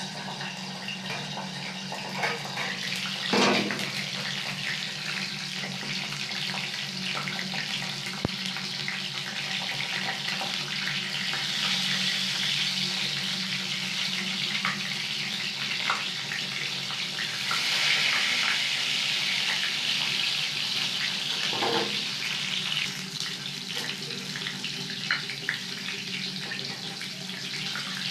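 Green bell peppers frying in hot oil in a steel kadai: a steady sizzle that swells and fades, with a few sharp metal knocks from the pan and the slotted spoon.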